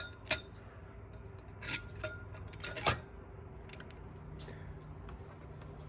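A few light metallic clinks with short ringing as clutch plates are handled and set into a 4L60E transmission's clutch pack, the loudest about three seconds in.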